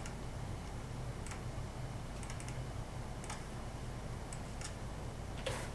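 Scattered short clicks from operating a computer running scanning software, irregularly spaced about once a second, a little stronger near the end, over a steady low hum.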